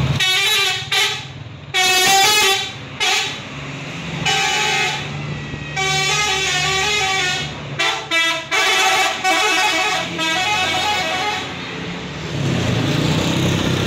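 A vehicle horn honked in a quick series of short and longer blasts, about ten in all. Near the end the blasts give way to a rougher, steady noise.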